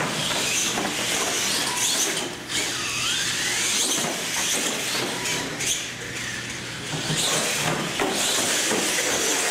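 Radio-controlled monster trucks racing across a concrete floor, their electric motors whining up and down in pitch with the throttle, with a few knocks as the trucks hit and land off the ramps.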